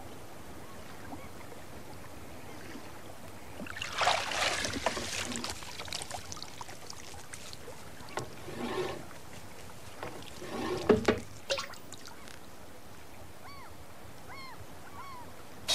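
Water splashing and dripping in three bursts, heard as a landing net is dipped in and hauled up out of the water with a herring in it, over a steady tape hiss. A few faint short chirps come near the end.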